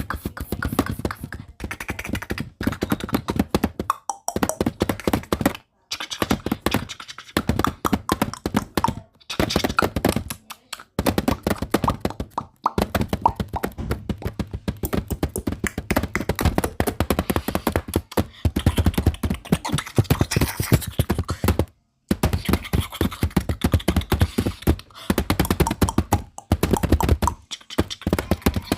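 Rapid tapping on a camera, many sharp taps a second in runs broken by short pauses.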